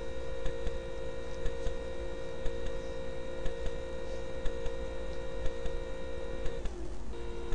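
A steady hum made of several constant tones, with faint, even ticking about twice a second. Near the end the hum drops out briefly with a short falling slide, then comes back.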